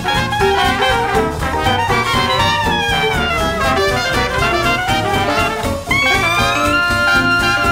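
Jazz music with brass instruments, a falling run of notes partway through, then new held notes near the end.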